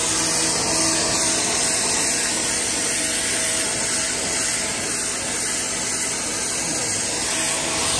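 Pressure washer running, its jet spraying a steady, loud hiss onto a wet concrete floor, with a faint steady hum of the machine underneath.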